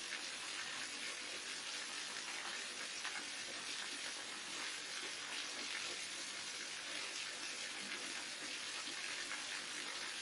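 Waterfall: a steady, unbroken rush of falling water with a bright hiss.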